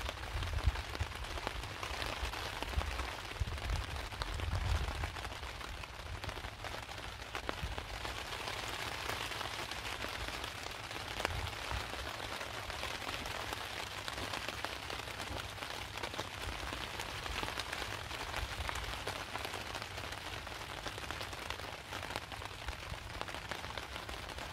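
Heavy rain pelting steadily on a tarp overhead, with some low rumbling in the first few seconds.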